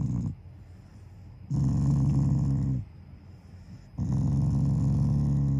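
Black Shiba Inu growling in low, rattling rumbles while being petted: the end of one growl at the start, then two long growls of over a second each. It is an affectionate growl, not an angry one.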